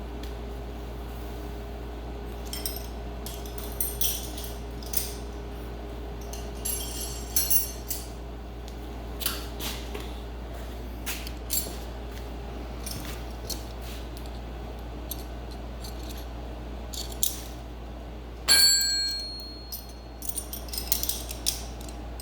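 Metal hand tools and bolts clinking and tapping in scattered knocks while brake hardware is being fitted. Near the end comes one louder metallic clank that rings briefly, as a steel tool is set down or dropped. A steady low hum runs underneath.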